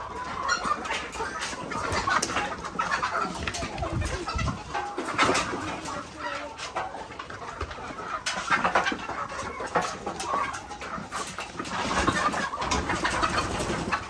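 Domestic chickens clucking, many short overlapping calls, with scattered knocks and rustling.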